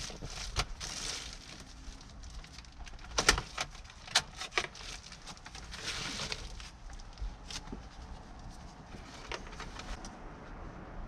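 Hands working in a car interior: scattered clicks and knocks of plastic and metal parts as a car stereo and console pieces are handled, the sharpest about three and four seconds in, with two short spells of plastic-bag rustling.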